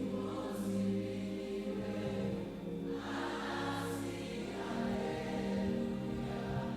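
Slow gospel worship music: sustained chords with a choir singing softly, the voices swelling about three seconds in.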